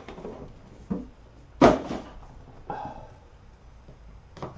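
A cardboard trading-card box being handled and cut open with a pocket knife: a few light clicks and taps, with one loud, sharp knock about a second and a half in.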